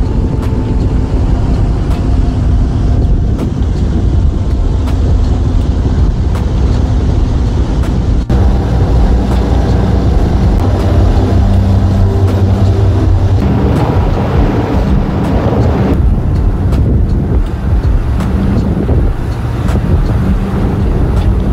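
A car ferry's engines rumble steadily while wind blows across the microphone on the open deck. The sound changes abruptly about eight seconds in and again near sixteen seconds.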